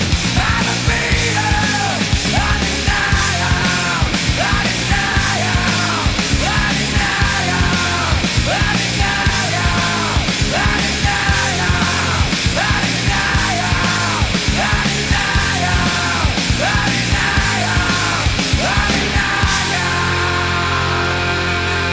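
Loud punk/heavy rock music with yelled vocals over a driving beat. The vocals stop near the end, leaving the band playing on.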